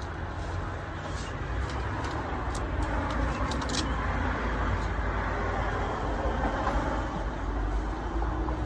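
A vehicle passing by, its road noise swelling through the middle and fading near the end.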